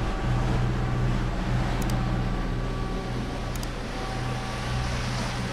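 A catamaran's engines running steadily under way, heard from inside the cabin as a constant low hum.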